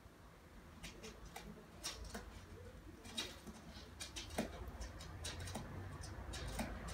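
Feral pigeon handling a nesting twig on a windowsill: scattered light clicks and scrapes, a few a second, as the twig and the bird knock against the sill and window frame, over a low rumble.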